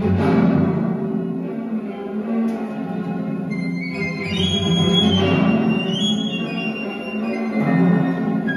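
Classical string music played from a vinyl record on a turntable, heard through hi-fi loudspeakers in the room.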